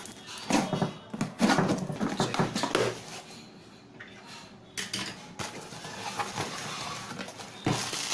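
Cardboard shipping box being handled and opened: a run of knocks and scrapes of the cardboard and its flaps in the first three seconds. Near the end, plastic bubble wrap rustles and crinkles as it is handled.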